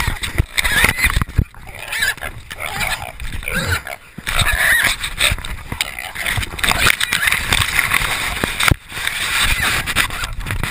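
Continuous rustling, scraping and knocking from a dog-mounted camera jostling through brush, with intermittent high squeals from a caught shoat (young feral hog).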